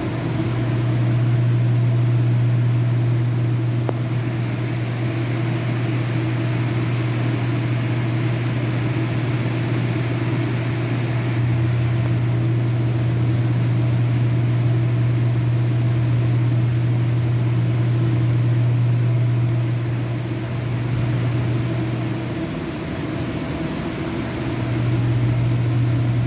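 Steady low machine hum with a faint hiss over it. It drops away briefly about 22 seconds in, then comes back.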